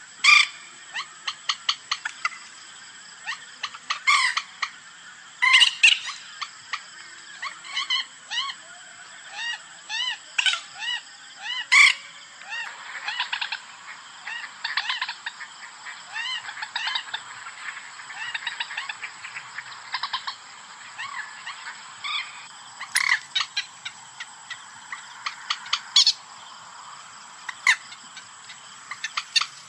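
Common moorhen lure call: quick runs of short, sharp clucking notes, with louder harsh calls bunched every few seconds.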